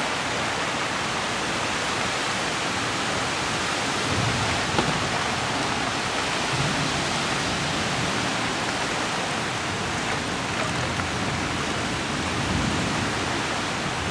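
Heavy rain falling steadily, an even hiss, with a few brief low rumbles now and then.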